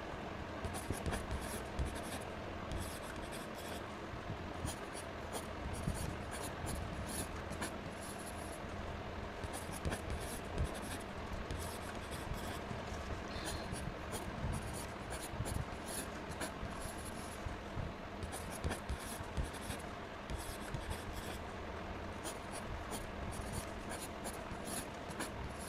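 Pen scratching on paper in many short, irregular strokes, the sound of drawing with ink.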